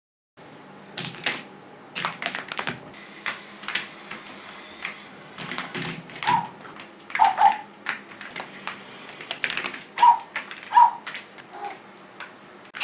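A cat scrambling and pouncing: quick, irregular taps, knocks and scrabbles of paws and claws, with a few short high squeaks in the second half.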